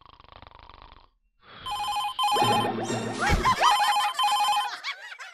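Cartoon desk telephone ringing with a fast, trilling electronic ring, repeated in bursts. It starts after a second and a half of faint background, and warbling, gliding tones overlap the middle of the ringing.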